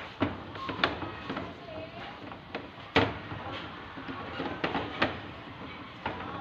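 Irregular sharp clicks and knocks of parts and tools being handled during a washing machine repair, with the loudest knock about three seconds in.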